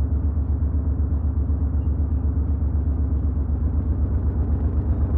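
Eurorack modular synthesizer output run through a Noise Engineering Imitor Versio delay: a dense, low rumbling drone that pulses quickly and evenly in loudness.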